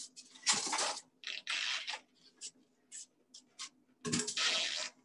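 Things being cleared off a tabletop: three rustles with a few light taps and clicks between them as items are picked up and set down.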